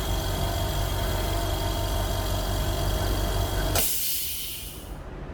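Tiger GDG30 3 HP oil-free air compressor running steadily; near the end its motor sound drops away suddenly and a short loud hiss of air follows, fading within about a second.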